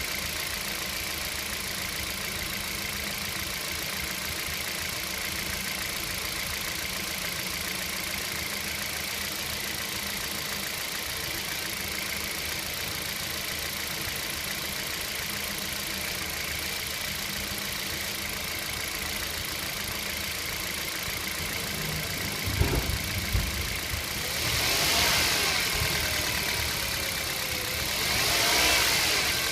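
Kia Rio engine idling steadily, with a few low thuds about three-quarters of the way through, then revved up and back down twice near the end. The car has an extraneous noise whose cause is not identified.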